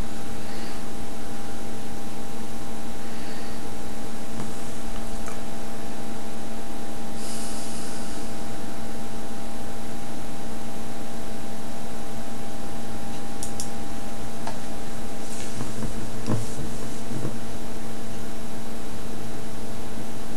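A steady hum with several even tones, over a constant hiss, with a few faint, brief clicks.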